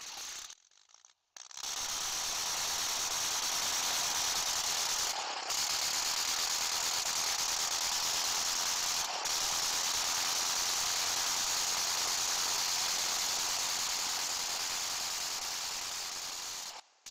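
A steady rattling hiss, strongest in the upper range. It dips briefly about five and nine seconds in and fades out near the end.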